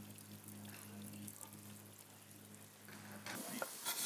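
Quiet kitchen room tone with a low steady hum; the hum stops about three seconds in, and faint clatter of kitchen work follows near the end.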